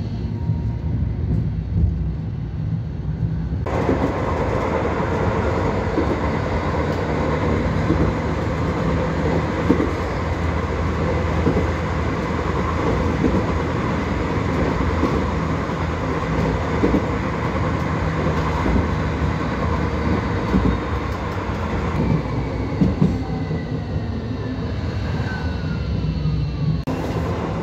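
A tram running on its rails, heard from inside the car: a steady rumble of wheels and running gear, with a whine that falls in pitch near the end.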